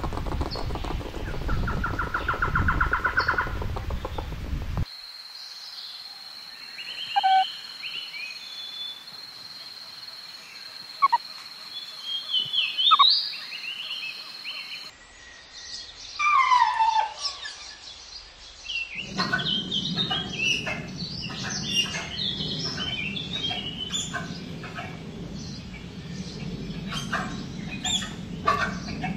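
Outdoor animal sounds in three short takes. First comes a rapid pulsing trill. Next, scattered high chirps and whistles play over a steady high tone. Last, a loud falling whistle is followed by many birds chirping over a low hum.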